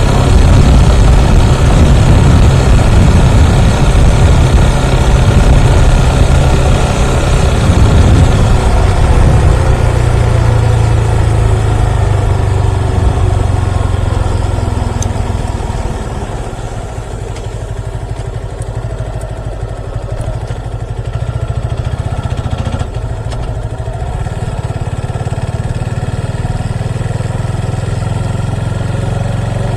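Motorcycle engine running, loudest in the first half, then easing off about halfway through to a steadier, quieter note.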